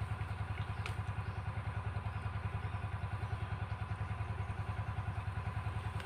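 A small engine running steadily with an even low throb, about eight pulses a second. A single light click comes about a second in.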